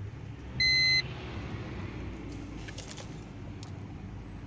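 A single short electronic beep from a BMW E46's instrument cluster as the ignition is switched on to cycle the glow plugs of the cold diesel, followed by a few faint clicks.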